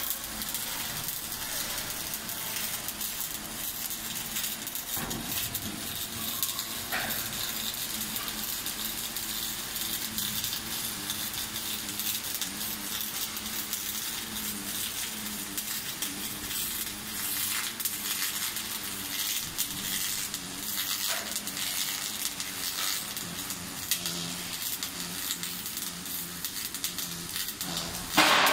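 Arc welding on a steel tank seam: a steady crackling sizzle from the welding arc, with a faint low hum underneath. A sudden louder burst of crackling noise comes right at the end.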